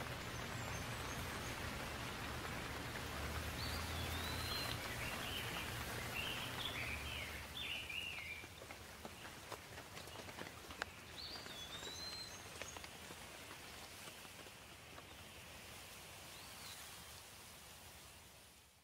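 Steady rain falling, with drops ticking on surfaces. A bird chirps several short phrases a few seconds in and again around the middle. The sound fades out at the very end.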